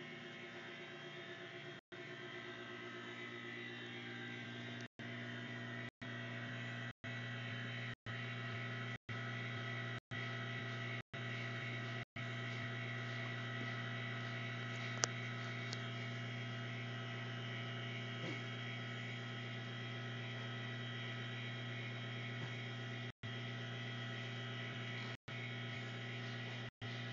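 Electric drive of a HOHM driving-school cutaway model car running its see-through engine and drivetrain: a steady mechanical hum with a thinner whine above it, building over the first couple of seconds.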